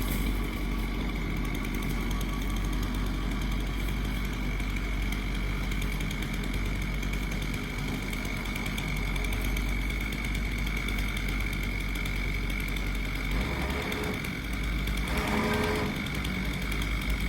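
An engine or machine running steadily, with a constant high-pitched whine above a low rumble.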